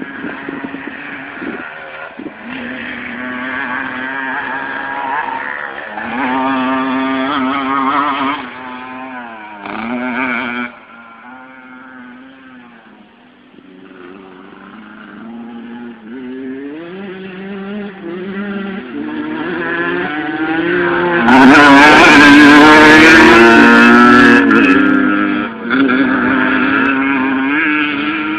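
Motocross dirt bike engine revving up and down as it laps the track, its pitch rising and falling with throttle and gear changes. It is loudest about three-quarters of the way through, as it passes close by.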